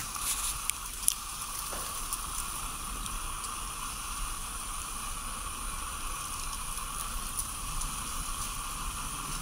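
Steady outdoor background noise, an even hiss with a thin high whine, with a few faint clicks in the first second or so.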